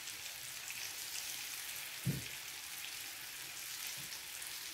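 Breaded banana pieces frying in shallow oil in a stainless-steel pan: a steady crackling sizzle, with one low knock about two seconds in.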